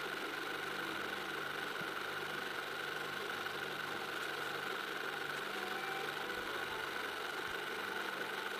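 An engine running steadily in the background, an even hum that does not change.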